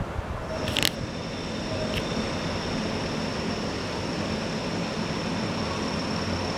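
Steady running noise of a vehicle with a low hum, joined about half a second in by a thin high steady whine, with two brief clicks in the first two seconds.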